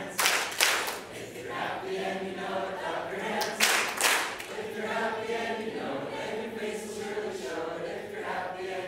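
A roomful of people singing a familiar Mormon children's song together, with two pairs of sharp claps, one near the start and one about halfway through.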